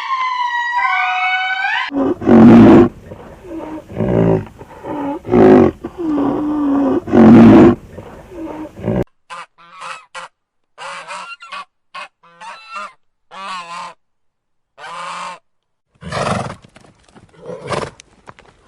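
A run of separate animal-call clips spliced one after another: a repeated gliding call at the start, then loud honking calls, then short choppy calls broken by silences, with one more loud call near the end.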